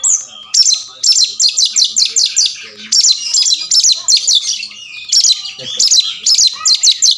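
Oriental magpie-robin (kacer) in full song: fast runs of sharp, high whistled notes, several a second, in loud bursts of a second or two with brief pauses between them.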